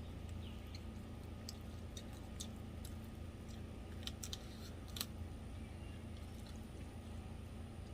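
Faint close-up chewing and mouth clicks of someone eating, as scattered small clicks with a couple of sharper ones about four and five seconds in, over a steady low hum.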